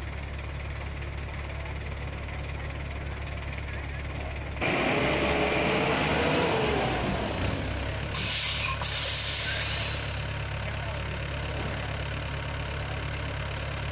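Small dump truck's diesel engine running steadily while it tips sand from its raised bed. A much louder rushing noise starts suddenly about four and a half seconds in and fades out about five seconds later, with short sharp hisses near its end.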